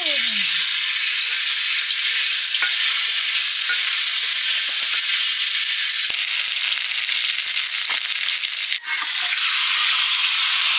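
Duck meat frying in hot oil in a cooking pot: a loud, steady sizzle that breaks off for a moment about nine seconds in, then picks up again.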